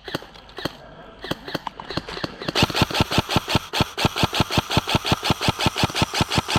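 Airsoft gun firing: a few scattered single shots, then from about two and a half seconds in a long, rapid, steady burst of full-auto fire.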